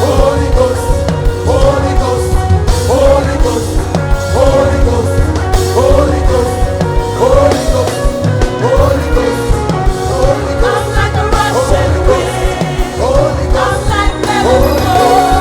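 Live gospel worship band playing at full volume, with drum kit, a strong bass line and singing over a repeating melodic figure.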